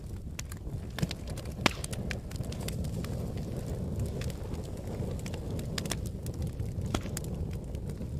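Wood fire crackling in a fireplace: a steady low rush of flames with frequent sharp pops and snaps. The loudest pop comes a little under two seconds in.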